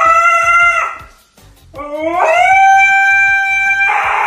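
Husky howling. One howl ends about a second in, and a second howl rises in pitch and then holds steady. A harsher, noisier sound cuts in near the end.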